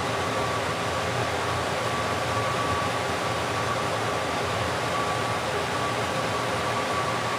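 Steady fan-like hiss with a faint constant whine, unchanging throughout.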